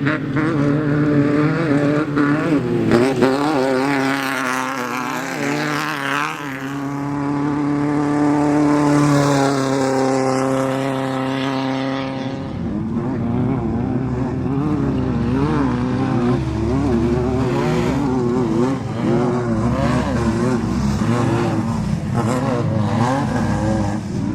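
Class 5-1600 off-road race car's air-cooled Volkswagen 1600 flat-four engine running hard. Its pitch climbs steadily for about six seconds, then swings up and down quickly over and over as the throttle comes on and off.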